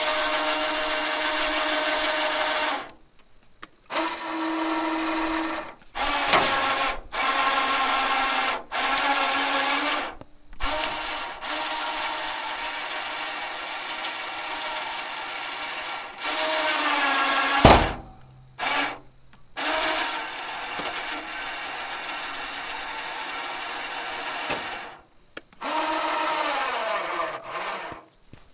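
12-volt electric winches, rated 2000 lb, driving a home-built sawmill log turner and clamp. They run in about a dozen short bursts with brief pauses between, each a steady motor whine whose pitch shifts and sometimes sinks as the load changes. There is one loud knock about eighteen seconds in.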